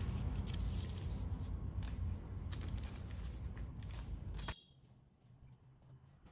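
Baking parchment paper crinkling and rustling in short crackles as sponge cake sheets are handled on it, over a steady low hum. The sound stops abruptly about four and a half seconds in, leaving faint room tone.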